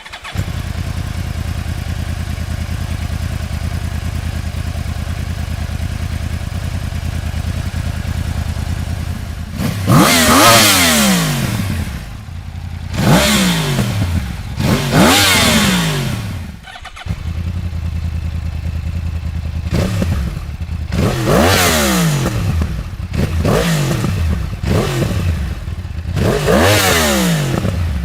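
A 2015 Yamaha R1's crossplane inline-four idling steadily through an aftermarket exhaust. About ten seconds in, the throttle is blipped in a series of quick revs, each rising sharply and falling back to idle.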